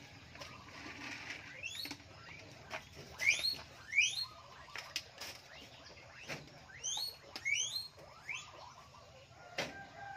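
Birds chirping: several short rising chirps, the loudest a pair a few seconds in and another pair later, over faint clicks and rustling.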